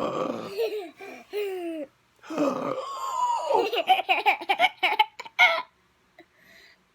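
Laughter: high-pitched vocal sounds, then a run of quick laughing bursts from about two to five and a half seconds in.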